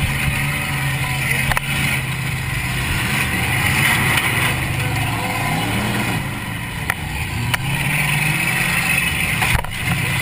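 Demolition derby car's engine heard from inside the cabin, running hard and revving up and down several times, with a few sharp knocks.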